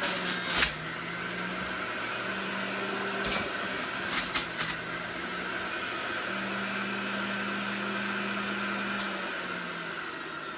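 Electric centrifugal juicer running, its motor hum dipping and rising in pitch as fruit and vegetables are pressed down the feed chute. A few short sharp knocks sound over it, and the hum gets quieter near the end.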